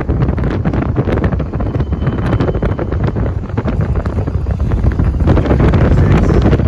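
Freight cars rolling past close by: a steady rumble of wheels on rail with rapid clicks, under heavy wind buffeting on the microphone. It grows louder about five seconds in as a Union Pacific diesel locomotive comes alongside.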